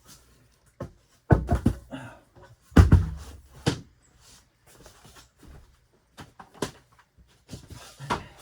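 Knocks and clatter of objects being handled and set down in a small room, with a heavy thump about three seconds in and lighter clicks near the end.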